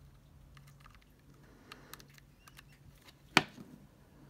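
Light scattered clicks and taps of a hand handling a click-wheel iPod and its 30-pin cable connector, with one sharp, much louder knock about three and a half seconds in as the iPod is put down on the desk.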